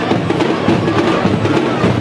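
Loud music with steady drumming.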